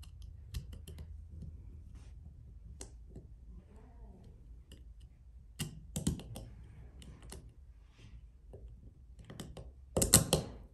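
Small plastic clicks and taps as a rubber comfort pad is pressed and worked down over the two contact posts of an e-collar receiver. A louder flurry of clicks comes about six seconds in, and the loudest about ten seconds in.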